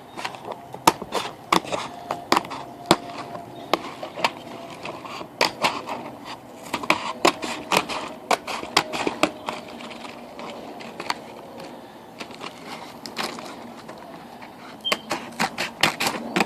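Small cardboard candy box being torn and cut open by hand, giving irregular sharp crackles and snaps of cardboard, in clusters throughout.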